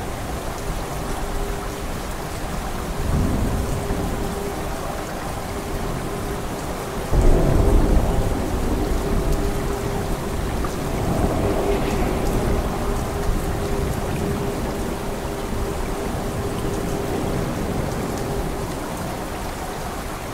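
Steady heavy rain with rolling thunder. A rumble comes about three seconds in; a loud thunderclap breaks about seven seconds in and rumbles away over several seconds; another softer roll follows a few seconds later.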